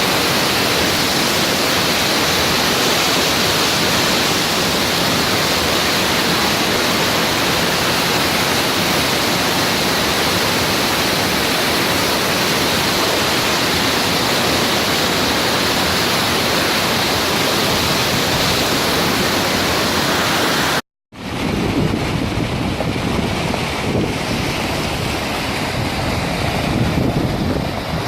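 Loud, steady rush of rainwater, an even noise with no let-up. About three-quarters of the way through it breaks off for a moment and resumes with a deeper rumble.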